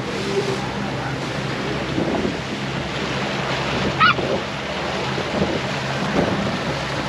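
Water washing along a small boat's hull while it trolls slowly, with wind buffeting the microphone and a faint low engine hum under it. About four seconds in there is one brief, sharp high squeak.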